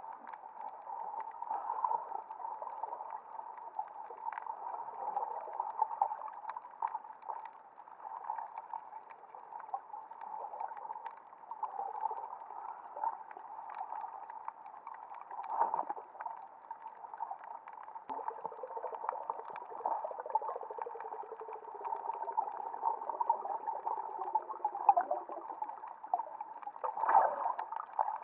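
Muffled underwater noise picked up by an action camera beneath the surface: a steady water hiss full of small crackles and clicks. In the second half a faint low hum slides slowly downward for several seconds, and a louder swish comes near the end.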